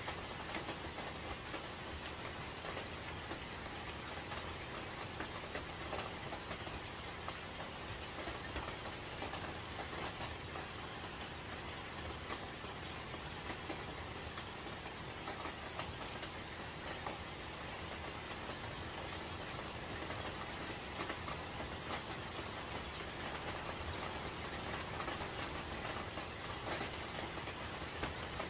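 Heavy rain falling steadily on a tent roof, heard from inside: a constant hiss scattered with many sharp drop ticks.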